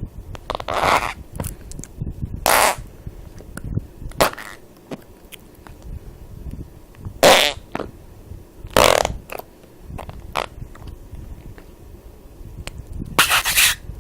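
A series of fart sounds: five short blasts spread out over the stretch, each well under half a second, with faint clicks between them.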